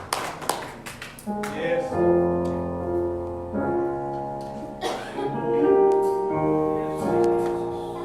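Keyboard playing slow, sustained chords that change every second or two, opening a worship song.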